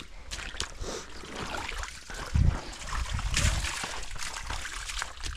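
Muddy puddle water sloshing and trickling as a boot sweeps it out to drain the puddle. There are a couple of heavier splashes, the strongest about two and a half seconds in.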